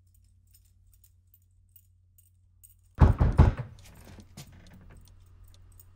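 Near silence with faint ticking, then about halfway through a sudden loud metallic rattle and knocking at the front door, a cluster of sharp strokes followed by a few lighter clicks.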